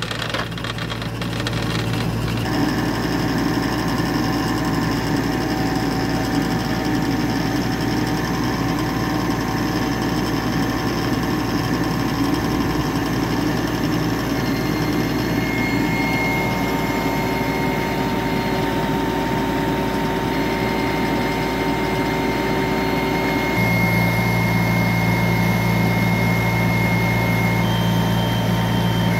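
Kubota U25 mini excavator's diesel engine running steadily under hydraulic load while its torque drive head turns a helical pier into the ground. The engine note shifts a few seconds in and again about three-quarters of the way through, and a thin high whine comes and goes in the second half.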